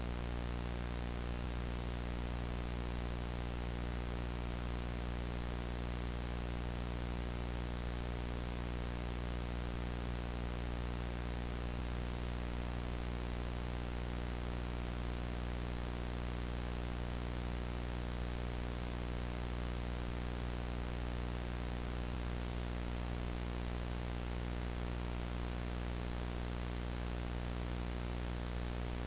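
VHS static: analog videotape noise, a steady, even hiss over a low hum with its overtones, unchanging throughout.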